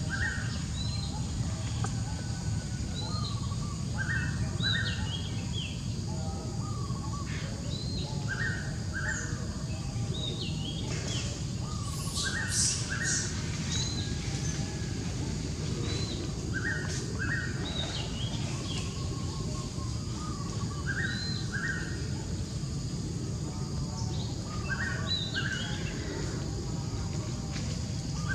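Birds calling, one short phrase of two quick notes with a higher hooked note, repeated evenly about every two seconds. Under it runs a steady low outdoor background noise, with a brief crackle about twelve seconds in.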